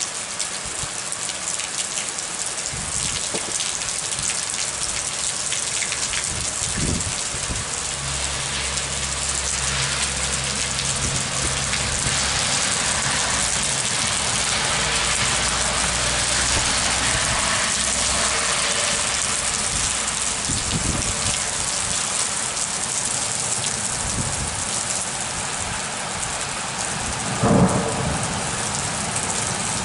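Heavy rain pouring steadily, with thunder rumbling low through the middle and a brief loud knock near the end.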